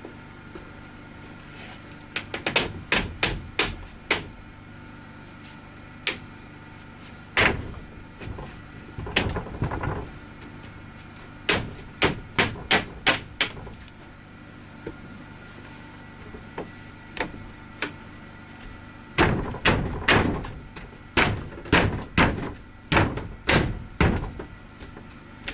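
Hammer blows on wood, in several runs of quick strikes, about two a second, with pauses between them.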